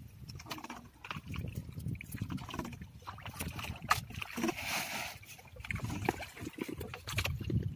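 Gill net hauled by hand over the side of a small outrigger boat: water trickling and sloshing off the net, with scattered light knocks of floats and line against the hull, over a low rumble. A brief rush of water about halfway through.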